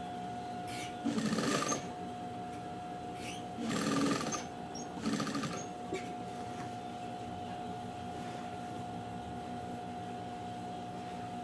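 Electric sewing machine stitching through a denim base in three short bursts: about a second in, around four seconds, and just after five seconds. A steady hum runs underneath.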